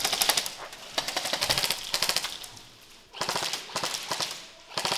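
Airsoft guns firing in rapid full-auto bursts: several bursts of fast clicking shots, each about a second long, with short pauses between.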